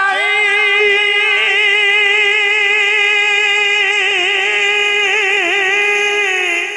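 A male naat reciter holding one long sung note without instruments, the pitch wavering in ornaments about four seconds in before settling again, then dropping off near the end.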